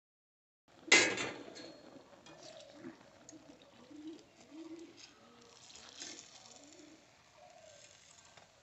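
Metal kitchen utensils clank sharply against a steel wok about a second in, followed by lighter clinks as the spider strainer works in the hot oil. A bird calls repeatedly in low notes in the background.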